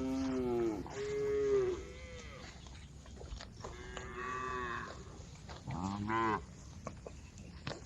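Cows mooing, about five calls in turn at different pitches, each dropping in pitch as it ends; the one at about two seconds in is faint.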